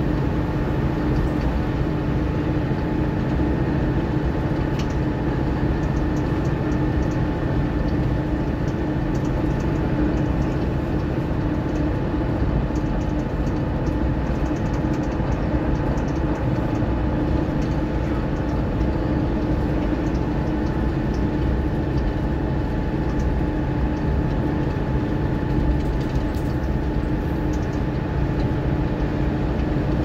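Mercedes-Benz Citaro O530 bus heard from on board, its diesel engine and drivetrain running steadily under way with a steady drone and whine and faint rattles.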